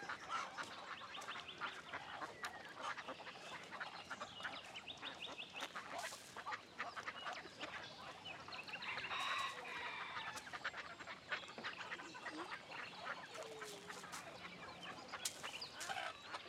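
Hens clucking repeatedly in short, overlapping calls, with ducks quacking among them.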